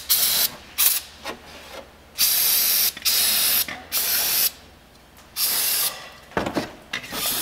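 Aerosol spray can of cleaner sprayed at greasy engine parts in a series of hissing bursts, some brief and some lasting most of a second, with short pauses between them.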